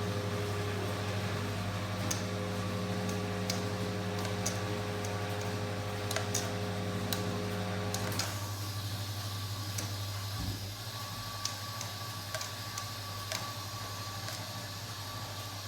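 Washing machine running with a steady electrical hum and scattered light clicks; about eight seconds in, part of the hum cuts out and the sound drops a little, leaving a thinner hum and a faint steady higher tone.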